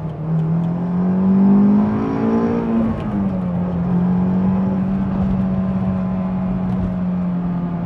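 Honda S2000 CR's 2.2-litre inline-four pulling hard through its Mugen cat-back exhaust, heard from inside the cabin. The engine note climbs steadily for nearly three seconds into the VTEC range and drops sharply at an upshift. It then runs at a steady pitch.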